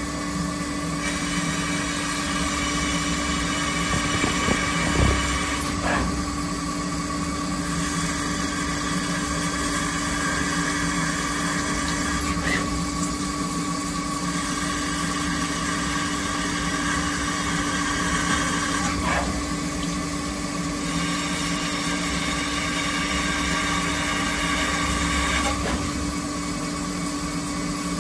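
YORNEW benchtop CNC milling machine's spindle running while an end mill cuts a finned aluminium housing under flood coolant spray: a steady machine hum with a cutting noise that changes every several seconds as the tool moves between passes.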